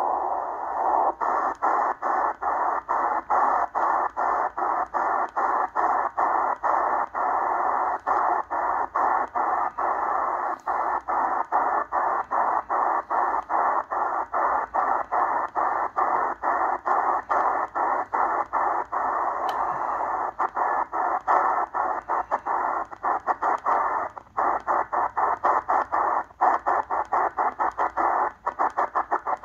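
Eton Grundig Satellit Executive shortwave receiver in upper sideband being tuned up through the 6.4–6.7 MHz utility range: steady band-limited static from the radio's speaker, cut by brief dropouts several times a second as the tuning steps.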